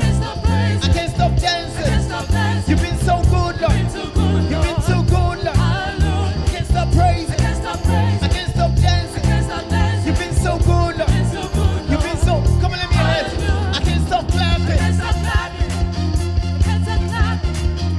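Upbeat live gospel praise music from a church band, with a steady, rhythmic bass beat and singers singing over it.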